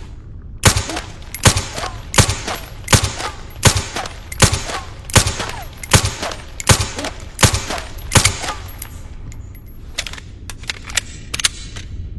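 SilencerCo Maxim 9 integrally suppressed 9mm pistol fired eleven times in steady succession, about one shot every three quarters of a second. A few fainter, sharp cracks follow near the end.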